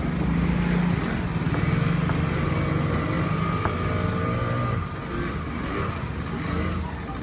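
Motor scooter engine running as it rides past close by, loudest for the first four and a half seconds and then fading.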